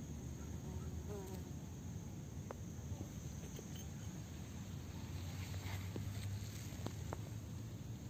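Outdoor ambience of steady high insect chirring over a low rumble of wind on the microphone, with a few faint short clicks.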